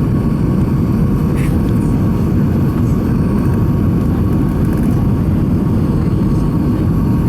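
Steady, loud airliner cabin noise inside an Airbus A320: a continuous deep rumble of engines and airflow, with a faint steady whine over it.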